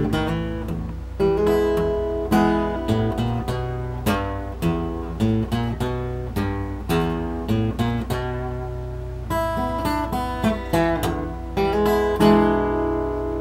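Acoustic guitar fingerpicked in a country-blues style, a run of single notes and chords that ends on a final chord a little after twelve seconds, left to ring and fade.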